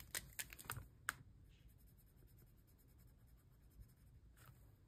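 Faint scratching of colouring in a small icon on a paper tracker by hand, with a few light taps and clicks in the first second and again near the end.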